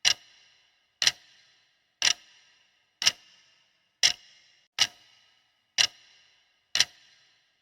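Clock ticking once a second, eight sharp ticks each with a short ringing tail, counting down the time allowed to answer a quiz question.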